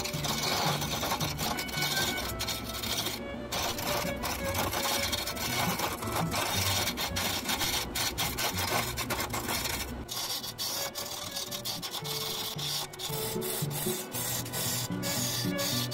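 Wood lathe turning a piece of tree branch while a turning chisel cuts into the spinning wood: a continuous scraping, rasping cut with a low running rumble that thins out about ten seconds in.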